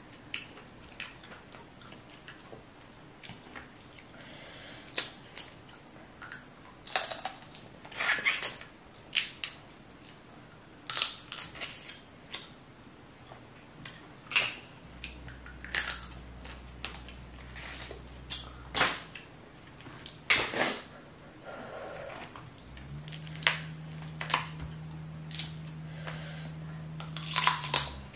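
Close-miked eating of a seafood boil: crab and shellfish shells picked and broken apart by hand, with chewing and mouth sounds, heard as a run of sharp clicks and crunches.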